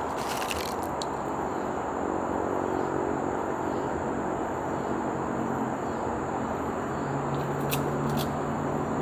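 Steady outdoor background noise with the low hum of a vehicle engine, growing stronger towards the end. A few brief crackles come right at the start as potato chips are handled in the bowl.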